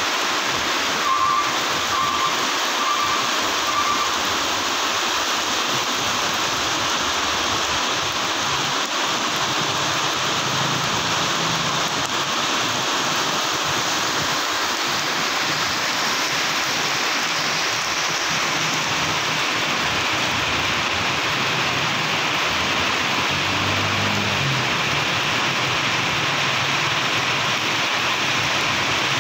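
Heavy rain pouring onto a wet, flooded road, a steady hiss, with the low engine hum of passing buses and trucks beneath it. Four short beeps sound about one to four seconds in.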